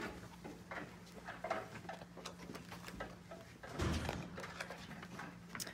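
Paper handling as a large book is opened and its pages turned: soft rustles and small clicks, with a louder rustle of a turning page about four seconds in. A faint steady hum runs underneath.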